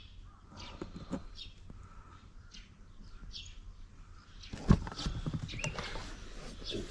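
Hands and tools working on a car's steering column mount under the dashboard: faint scraping and small clicks, then a sharp knock about four and a half seconds in, followed by busier rattling and handling noise.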